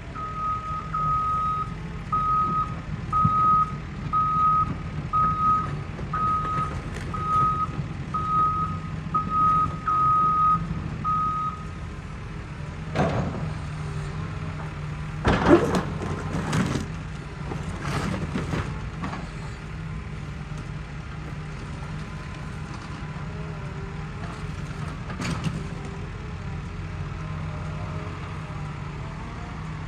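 A diesel Caterpillar excavator's engine runs steadily while a backup alarm beeps about a dozen times, roughly once a second, then stops. After that come several heavy crashes and knocks of brick and concrete debris being broken and dropped in the demolition, the loudest around the middle.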